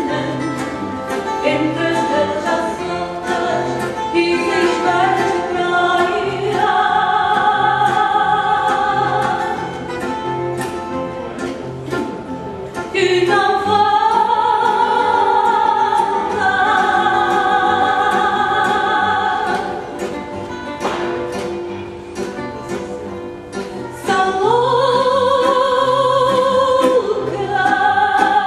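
A female fado singer holds long, wavering notes, several seconds each. Under her, a Portuguese guitar and a viola de fado (classical guitar) pluck a steady rhythmic accompaniment.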